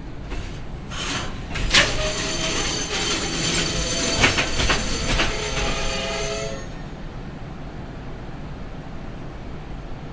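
Freight train's brakes squealing in several shrill tones, with a few metallic clanks, as it comes to a stop. The squeal cuts off about six and a half seconds in, leaving a steady low rumble.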